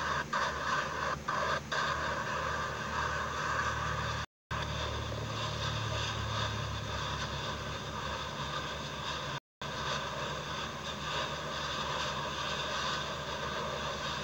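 Hawaiian volcanic eruption roaring steadily, a loud jet-engine-like roar with a low rumble underneath. The sound cuts out briefly twice.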